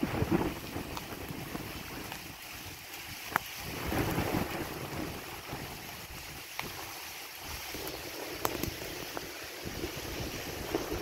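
Gusty storm wind buffeting the microphone over a steady hiss, with a few faint sharp ticks. The gusts ease off in the middle and pick up again near the end.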